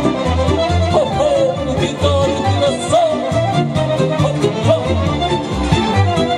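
Instrumental interlude of Romanian folk music: a fiddle plays an ornamented, wavering melody over a steady, regularly pulsing bass accompaniment.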